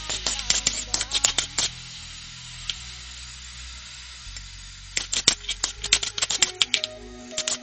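Spoon stirring banana jam in a pot on the stove, clinking and scraping against the sides in quick runs, with a pause in the middle.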